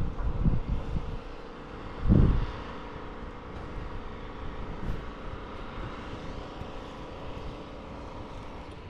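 An engine droning steadily, with low rumbling thumps in the first second and a louder one about two seconds in.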